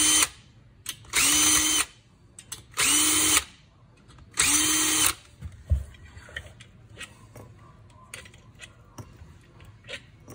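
Makita cordless drill/driver backing out the end-cap screws in short bursts, three full runs a second or so apart, each spinning up to a steady whine. After these, light clicks as the loose screws are set down.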